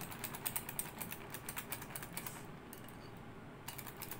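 Hand whisk beating whipped cream in a glass bowl, the wires clicking rapidly and unevenly against the glass, easing off for about a second past the middle. The cream is being whipped fast to thicken it.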